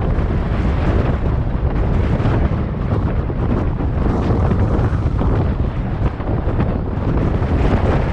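Strong wind buffeting the microphone: a steady, heavy low rumble with no break.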